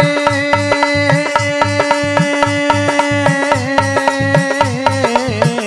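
Bundeli devi bhagat folk song: a long held note, wavering and sliding near the end, over a fast, steady drum beat and hand-clapping.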